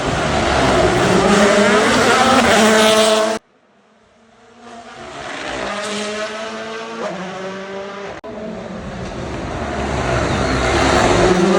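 Rally cars driven hard at full throttle, one after another, each engine note building as the car approaches, its pitch rising and dropping. The sound cuts off suddenly twice, about a third of the way in and again about two thirds in, and a fresh car's engine comes up after each cut.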